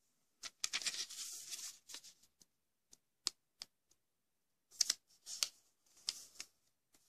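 A square sheet of origami paper rustling as its bottom edge is folded up to the centre crease, then a few sharp crackles and more rustling as fingers press the fold flat.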